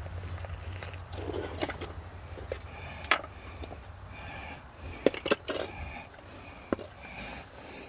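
Steel hand tools clinking and scraping against a bolt and a steel leaf spring hanger as a wrench is fitted under a socket ratchet. There are a few sharp, irregular metallic clicks, the loudest about five seconds in.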